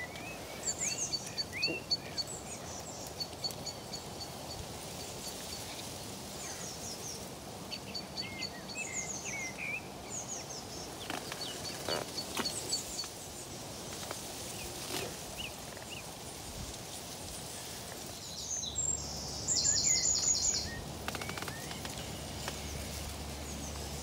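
Wild birds chirping and trilling, with repeated short high notes and quick runs of ticks over a steady outdoor hiss. A louder run of rapid high notes comes near the end.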